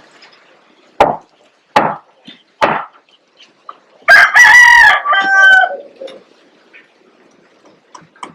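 A rooster crowing loudly and close by, one call of about two seconds that starts about four seconds in and steps down in pitch at its end. A few seconds earlier come three short, sharp sounds.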